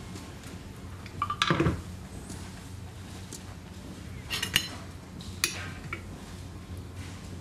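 Metal spoon scraping and clinking against a pan and dishes: one longer scrape about one and a half seconds in, then several sharp clinks, over a steady low hum.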